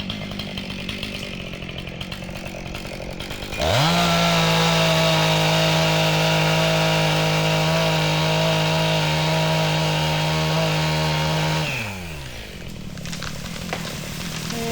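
Husqvarna 262XP two-stroke chainsaw idling, then revved to full throttle about four seconds in and held steady for some eight seconds as it cuts into a hollow, rotten maple. It then drops back to idle.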